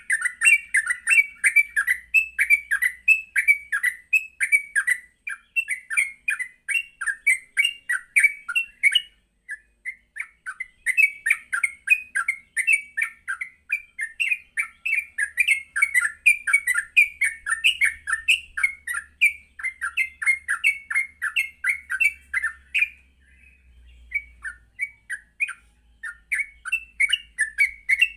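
Yellow-vented bulbul (trucuk) singing a fast, continuous chattering song of many short notes in quick succession, the rapid 'ngropel' style of song. It breaks off briefly about nine seconds in and falls quieter for a moment near twenty-four seconds.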